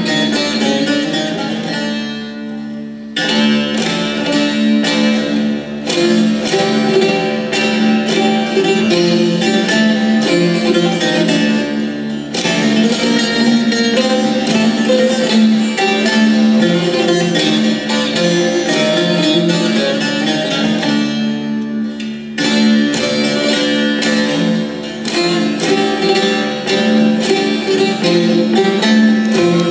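Long-necked bağlama played with fast picked notes over a steady low drone note, the melody thinning briefly about two seconds in and again about twenty-one seconds in.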